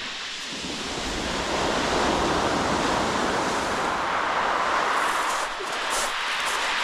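Sea waves breaking and washing on the shingle beach: a steady hiss that swells about a second in and then holds.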